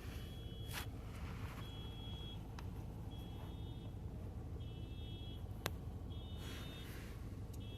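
A car alarm beeping faintly in a steady repeating pattern, one high beep about every one and a half seconds, six times, over a low steady hum. One sharp click a little past halfway.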